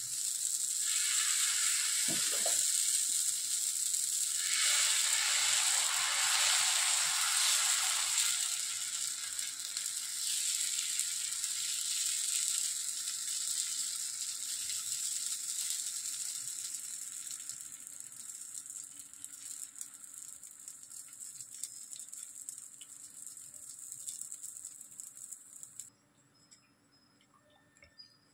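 Dosa batter sizzling on a hot tawa, swelling for a few seconds about five seconds in, then fading slowly and cutting off suddenly near the end.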